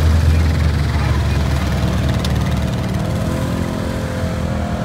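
Off-road vehicle engines (ATV and side-by-side UTVs) running close by with a steady low hum. A higher engine note joins about three seconds in, and there is a single click about two seconds in.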